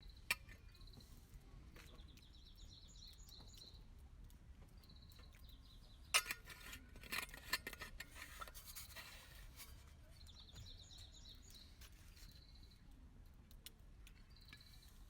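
A bird singing in short, repeated trilled phrases, with a run of light clinks and rattles of small utensils being handled about six to nine seconds in.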